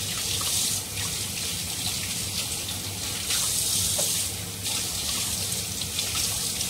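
Kitchen tap running into a sink, hands working under the stream, the splashing getting louder and softer as they move.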